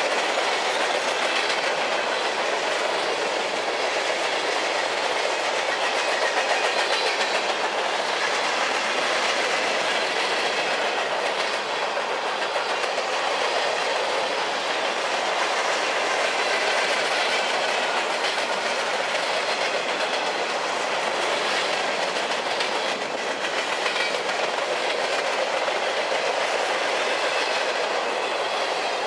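Freight cars of a mixed manifest train (autoracks, covered hoppers, tank cars and boxcars) passing close by at speed: the steady rolling and rattling of steel wheels on rail, with the clickety-clack of wheels over the rail joints.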